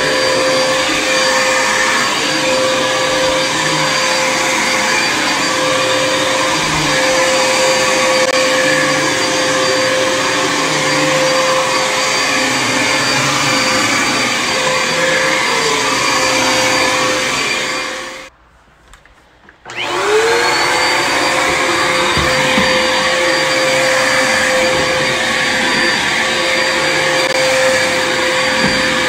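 Upright vacuum cleaner running over carpet: a steady motor drone with a held whine and a high whistle. About two-thirds of the way through, the sound drops away for a second or so, then the motor starts again, its whine rising quickly to full speed.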